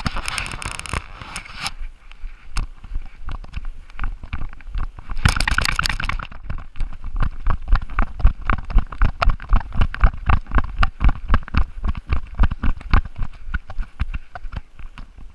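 A chocolate Labrador running along a trail with a camera mounted on its back: a steady rhythm of thumps, about three a second, as its gait jolts the mount. Bursts of crackling rustle near the start and about five seconds in.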